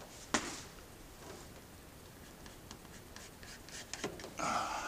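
A pencil scratching along the edge of a plastic wingtip adaptor as a trim line is marked on it, with light ticks and scrapes and one sharp click about a third of a second in.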